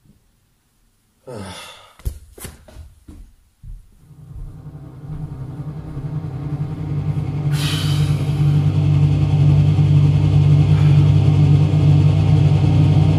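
Suspense film score and sound design: a falling whoosh about a second in and a few sharp hits, then a low droning tone that swells up and holds, with a hiss rising in near the middle.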